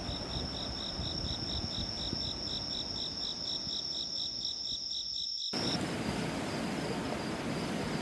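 Insects chirping: a steady high trill with a pulsing chirp about four times a second, over a low rumble. About five and a half seconds in the loud trill and pulses cut off abruptly, leaving fainter chirping over the rumble.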